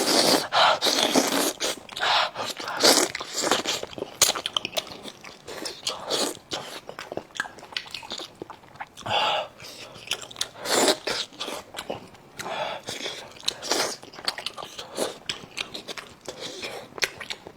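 Close-miked biting and chewing as a person eats sauce-braised monkfish, in irregular bursts with small clicks.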